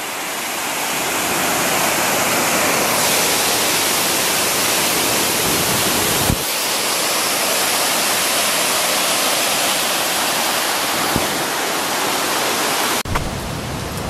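Aubrey Falls, a large multi-channel waterfall on the Mississagi River, pouring steadily as a loud, even rush of water, with one brief knock about six seconds in. About a second before the end the rush drops abruptly to a quieter, lower noise.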